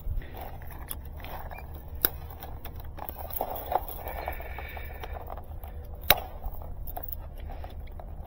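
Hands working fiber drop cable and a plastic splice closure with side cutters: scattered sharp clicks and light handling noise, the two loudest clicks about two and six seconds in, over a steady low rumble.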